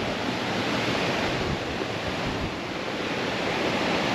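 Steady rushing of moving water, a shallow river running over stones into the sea surf, with some wind on the microphone.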